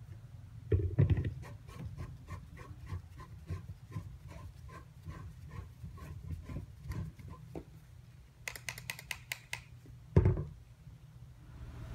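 Plastic canister of an air foamer being twisted onto the foamer gun, a run of light plastic clicks about three or four a second. A knock about a second in and a thump near the end as the foamer is set down on the stone counter.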